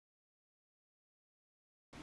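Silence: the soundtrack drops out completely, with faint room noise coming back only at the very end.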